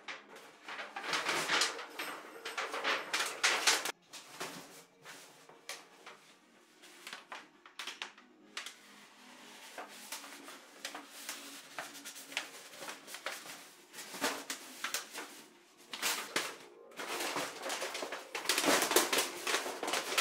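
Thin titanium sheet of a roll-up stove chimney crinkling and rattling as gloved hands handle it and roll it into a tube, in irregular bursts, loudest in the first few seconds and again near the end.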